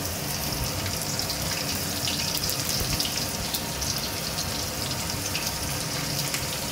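Chopped vegetables frying in hot oil in a wok: a steady sizzle with fine, rapid crackles.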